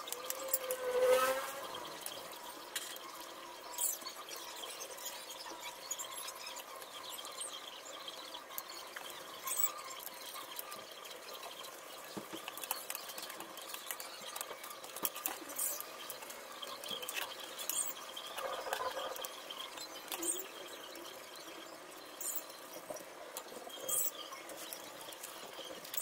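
Scattered light clicks and taps of a laptop's plastic bottom cover being handled and fitted back on, with a short squeak about a second in.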